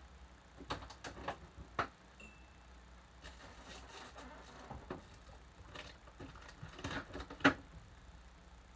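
Refrigerator door being pulled open and things on its shelves being handled: scattered knocks and clatter of jars and bottles, the sharpest knock near the end. A short faint high tone sounds about two seconds in.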